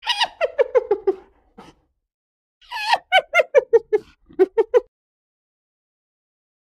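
Hyena giggling: two bouts of short, rapid yelping notes, several a second, the first sliding down in pitch, the second dropping and then climbing again near its end.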